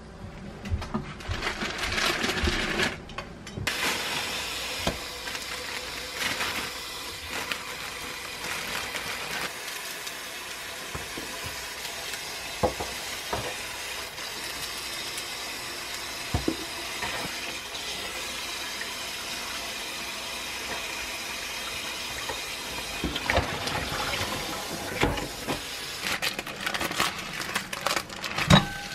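Kitchen tap water running into a plastic colander as spinach leaves are rinsed and handled, a steady splashing that starts about four seconds in. It is dotted with light knocks, and more clicks and clatter follow near the end.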